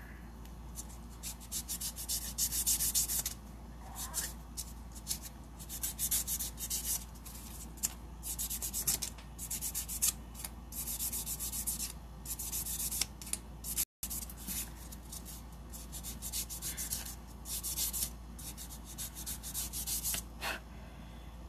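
A soft 100/180-grit buffer block rubbed briskly over acrylic nails in quick runs of hissing strokes, buffing out the file scratches. The sound drops out for an instant a little past halfway.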